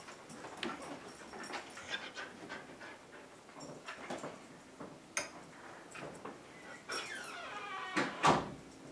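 A pet hiccupping repeatedly, with short sharp hiccups coming unevenly every half second to a second or so. A brief falling whine comes near the end, just before the loudest hiccup.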